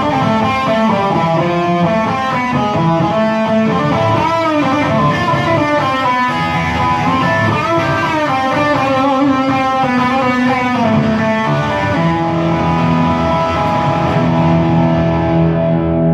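Instrumental break in a rock song: electric guitar with distortion playing a bending melodic lead line, which gives way about twelve seconds in to long held notes.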